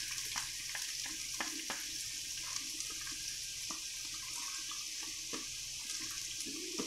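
Chopped onion frying in hot oil in a nonstick wok: a steady sizzle with scattered small crackles and pops.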